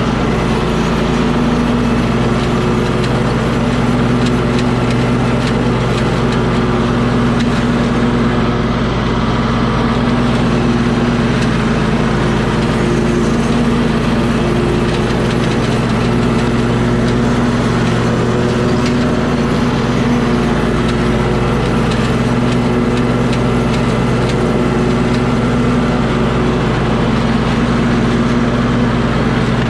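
An engine running steadily at an even speed, its pitch holding constant.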